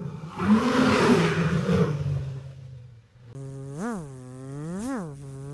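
A generated buzzing sound effect made from a hummed sketch, loudest in the first second and fading out by about three seconds in. Then a smooth pitched tone begins, swooping up and down about once a second.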